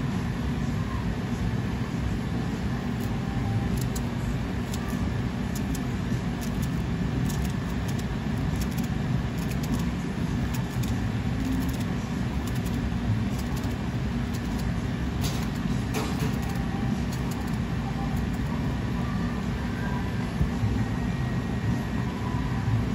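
Steady low rumble of a commercial kitchen's background machinery, with a few faint light ticks over it.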